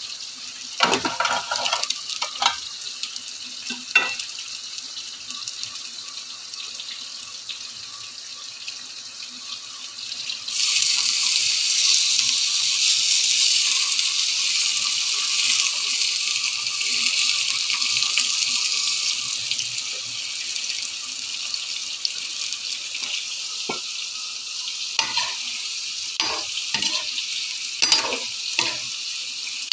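Food sizzling on a cast-iron grill pan, with a few knocks of a utensil on the pan. About ten seconds in, a much louder, higher hiss of potato sticks deep-frying in oil starts suddenly and keeps going, with tongs knocking against the pan several times near the end.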